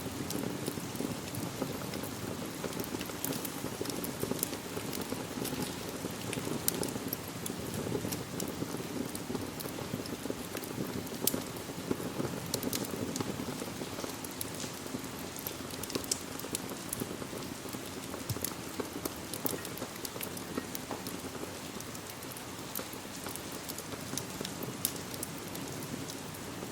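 Steady rain falling, an even hiss and patter with many short sharp ticks and crackles scattered through it.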